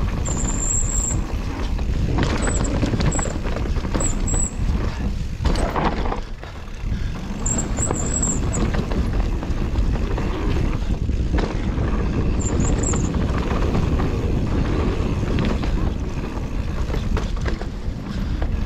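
Mountain bike ridden fast along a dirt singletrack: wind rushing over the microphone and tyres running on dirt, with the bike knocking and rattling over bumps.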